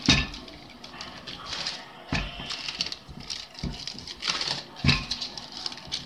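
Wooden rolling pin rolling out pie crust dough on a sheet, with a few dull knocks as the pin is pressed and set down and the sheet under the dough rustling and crinkling in between.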